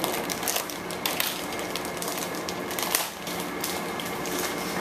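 Clear plastic packaging crinkling and rustling as it is handled, a run of irregular crackles.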